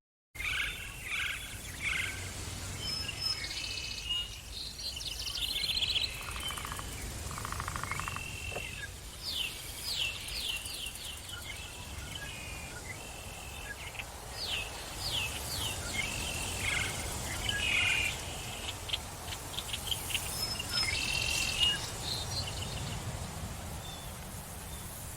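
Forest ambience with several birds calling and singing: scattered chirps and quick runs of short descending notes, over a steady background hiss. The sound drops out for a moment at the very start.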